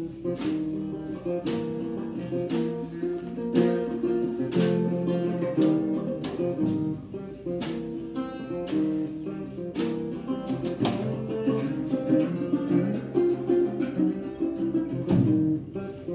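Small-bodied resonator guitar being strummed and picked, a steady run of chords with sharp, accented strokes.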